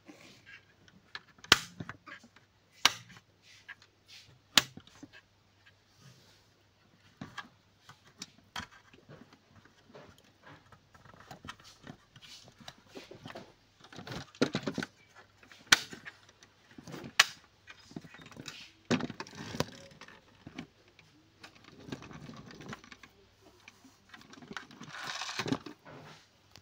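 Handling noises from a diecast metal model 4x4: sharp clicks and taps, a dozen or so spread out, as it is gripped, turned over and set down, with rustling scrapes as it is pushed across cardboard.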